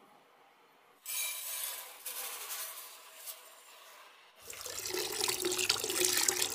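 Granulated sugar poured into a non-stick pan, a dry hiss. Then, about four and a half seconds in, water is poured onto the sugar to make sugar syrup, a louder splashing pour.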